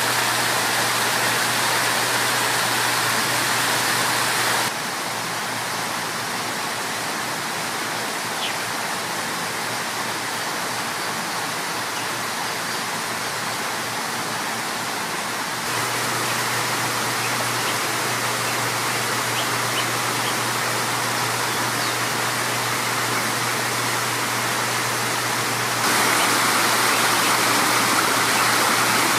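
Water splashing down a rock cascade into a shallow pool, a steady rushing. It drops quieter about five seconds in and rises again in two steps, near sixteen and near twenty-six seconds.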